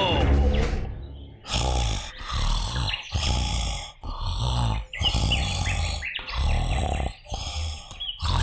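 A falling tone in the first second, then a cartoon bear snoring loudly in a steady rhythm, about one snore a second, in a deep, drugged sleep.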